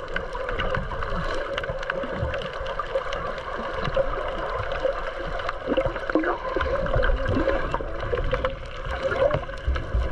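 Muffled underwater sound picked up by a snorkeler's camera: water gurgling and moving against the housing, with a steady hum running through it and scattered low thumps and small clicks.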